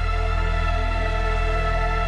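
Slow background music with sustained, held tones over a steady low drone.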